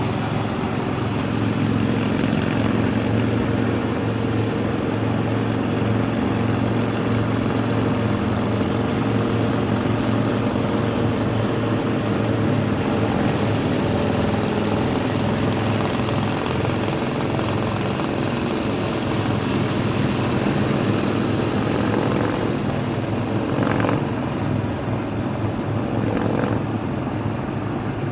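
Motorcycle engines droning steadily at highway cruising speed, mixed with road and wind noise.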